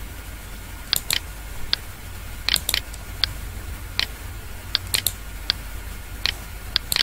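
Computer mouse clicking again and again, placing points on a path as it is drawn: sharp single and paired clicks at an uneven pace of roughly two a second, over a steady low electrical hum.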